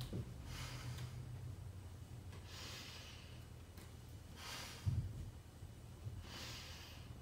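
A person breathing hard with exertion while holding a plank, four audible breaths about two seconds apart. A soft low thump about five seconds in.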